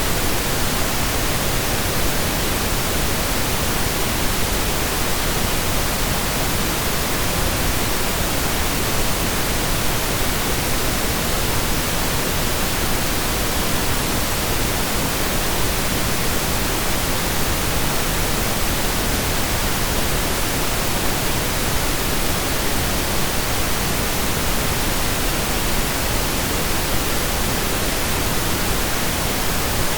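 Steady synthesized pink noise, an even hiss with equal energy per octave, like steady rain or a waterfall.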